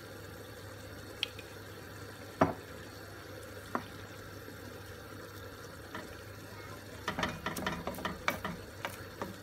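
Wooden spoon stirring wet spinach and bulgur in a granite-coated pot, with a few separate knocks of the spoon on the pot, then a quick run of knocks and scrapes in the last two seconds, over a steady low hum.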